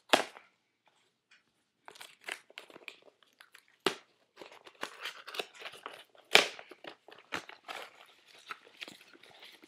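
A package being opened by hand: packing material and cardboard crinkling, crunching and tearing, with sharp knocks near the start, about four seconds in and about six seconds in.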